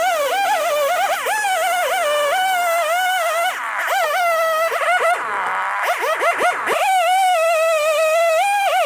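Two-stroke chainsaw running at high revs under load. Its pitch wavers, and several times it drops sharply and climbs back as the throttle is let off and opened again.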